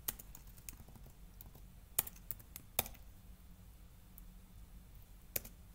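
Typing on a computer keyboard: scattered, irregular key clicks, with a few louder keystrokes about two seconds in, near three seconds, and near the end.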